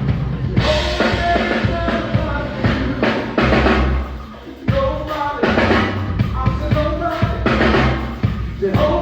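A band playing with a full drum kit (kick, snare and rimshots) driving the music. About four seconds in it drops back briefly, then a drum hit brings the whole band back in.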